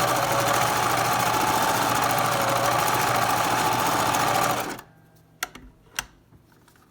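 Vigorelli Maxi 8500 sewing machine running fast while sewing a decorative cam stitch, with the foot pedal only part way down. It stops abruptly about four and a half seconds in, and two sharp clicks follow.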